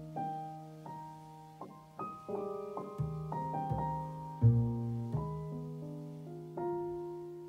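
Background piano music: slow notes, each struck and left to die away, over a held low bass note.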